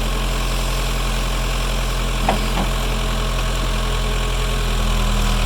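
Backhoe engine running steadily, with one short clank a little over two seconds in.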